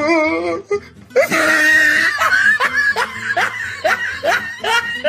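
A person laughing in a run of short repeated bursts, about two to three a second, used as a meme sound effect. It follows a brief wavering, drawn-out voice.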